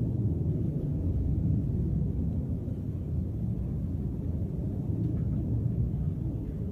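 A steady low rumble without breaks, the unexplained 'strange sound' reported in the sky over Cauca.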